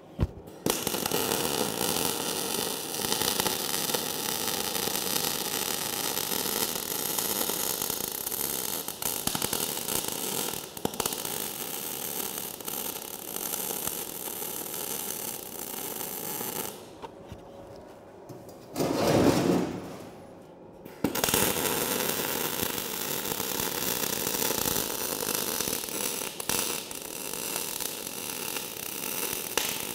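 MIG/MAG welding arc running along the joints of a steel angle-profile frame: a steady crackle that stops about 17 s in and starts again a few seconds later. A brief louder noise comes in the gap.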